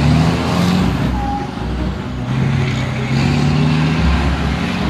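Ford Dakar rally truck's diesel engine under hard throttle as it drives past on a sandy track. The engine note climbs, dips about a second in, then climbs steadily again.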